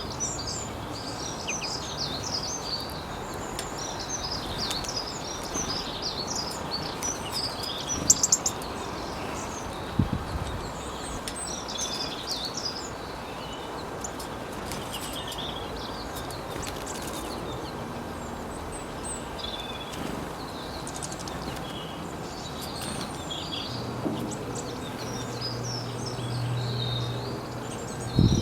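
Several songbirds chirping and calling in quick short notes over a steady background hiss, with a few sharp knocks. A low hum joins in near the end.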